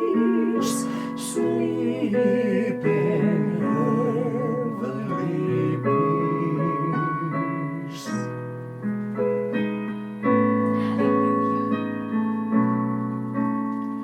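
Slow piano accompaniment with a singer holding notes with vibrato.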